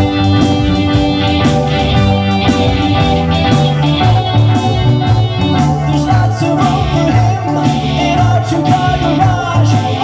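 Live rock band playing: electric guitar, electric bass and keyboard over a steady beat, with a voice singing along from about halfway through.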